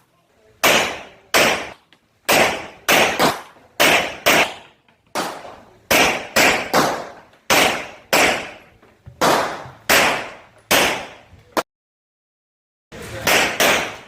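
Rock Island Armory Tac Ultra FS HC pistol firing about twenty quick shots, many in pairs about half a second apart, each with a short echoing tail. Near the end the sound drops out completely for about a second, then three more shots follow in quick succession.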